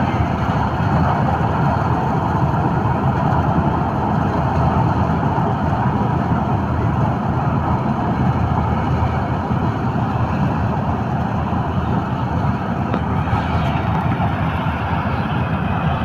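Preet 987 combine harvester running steadily as it cuts paddy: a loud, continuous engine and machinery drone with no pauses or changes.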